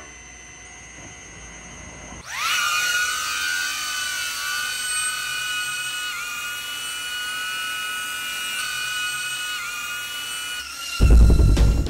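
DJI Avata FPV drone's propellers whining in flight. The high, steady whine rises as the motors spin up about two seconds in, then shifts slightly in pitch a few times with throttle changes. A loud, deep boom comes near the end.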